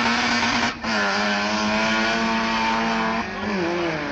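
Car engine held at high, steady revs, with a brief break about a second in and a drop then rise in pitch near the end.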